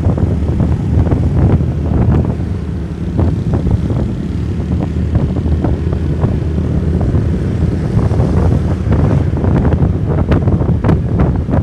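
Wind buffeting the microphone of a moving motorcycle, over the steady running of small motorcycle engines.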